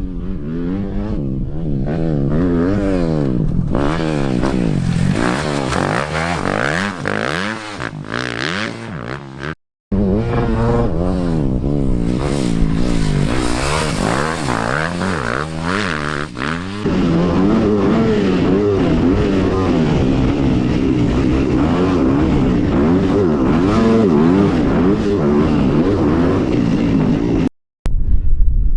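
Dirt bike engine revving up and down again and again as it is ridden, the pitch rising and falling with each burst of throttle. The sound breaks off abruptly twice, about 10 s and 28 s in.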